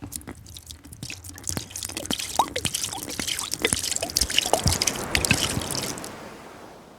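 Wet sea-sand scrub being stirred with a spoon in a container: gritty scraping full of small irregular clicks and wet squelching, dying away near the end.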